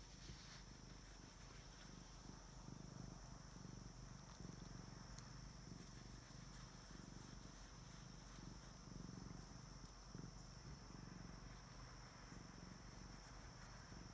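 A young cat purring faintly while being stroked, a low steady rumble, with a thin high-pitched whine running under it.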